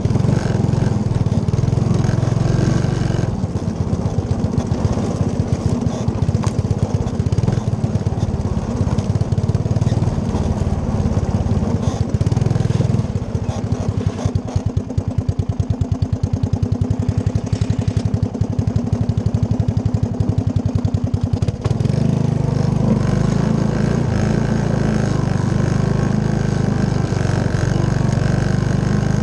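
Three-wheeler ATV's engine running as it drives across rough grass. About halfway through the engine slows for several seconds, its firing pulses heard one by one, then it picks back up to a steadier, fuller sound about three-quarters of the way in.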